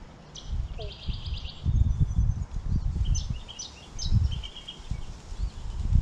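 Small birds calling: a rapid trill about a second in, then several short chirps and another brief trill around three to four seconds in. Underneath, the loudest sound is an irregular low rumble, like wind buffeting the microphone or steps on the boards.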